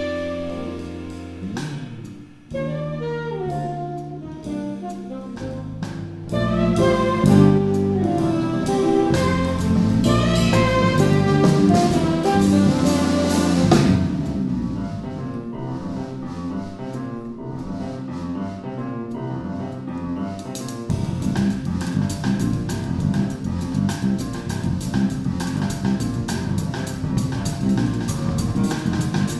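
Live jazz quartet playing: alto saxophone, grand piano, electric bass guitar and drum kit. The saxophone carries the melody through the first half, then drops out about halfway, leaving piano, bass and a steady drum groove.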